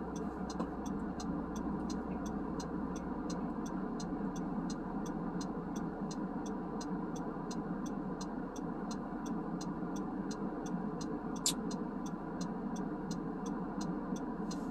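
Car interior road and engine noise with a steady, rapid ticking, about three ticks a second, from the turn-signal relay. One louder click comes about three-quarters of the way through.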